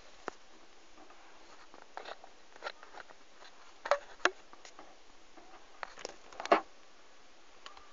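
Rubber loom bands being stretched onto the pegs of a plastic loom, giving scattered light clicks and snaps. The loudest come about four seconds in, a pair close together, and again about six and a half seconds in.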